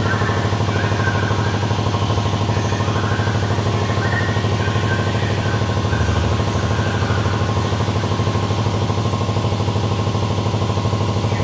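A machine running steadily under load: a low, even hum with a fast regular pulse and no change in speed.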